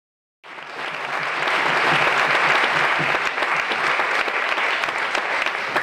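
Audience applauding, a dense steady clapping that starts suddenly about half a second in.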